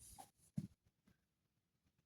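Near silence: room tone in a pause between sentences, with one short, soft low thump about half a second in.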